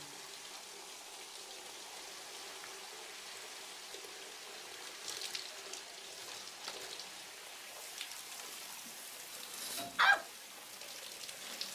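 Shower spray running steadily onto a person and the tiles, a continuous hiss of falling water. About ten seconds in there is one short, loud vocal sound.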